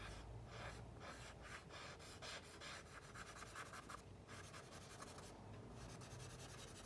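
Compressed charcoal stick scratching on drawing paper in quick, short strokes, a few a second, faint.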